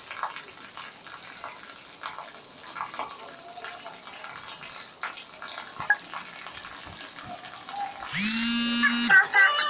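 Heavy rain falling and splashing on a wet concrete street, a steady hiss. About eight seconds in, a loud held pitched sound starts over it.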